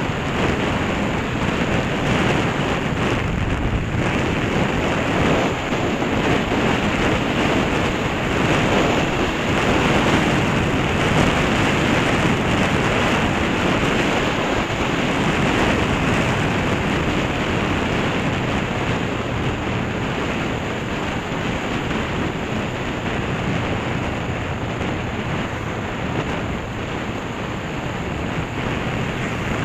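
Steady rush of wind over the microphone of a Honda CB500 motorcycle cruising at road speed, with the bike's parallel-twin engine running underneath.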